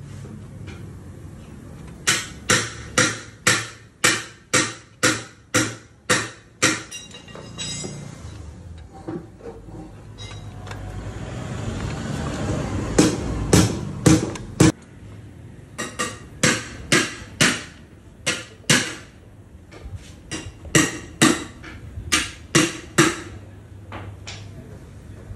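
Hand tool clicking against a bolt on a motorcycle engine, in runs of sharp, evenly spaced clicks about two a second. A rushing noise swells up about halfway through.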